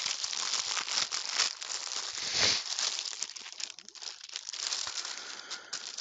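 Shipping-package material crinkling and rustling as it is handled and opened by hand, with small crackles throughout and a louder crinkle about two and a half seconds in.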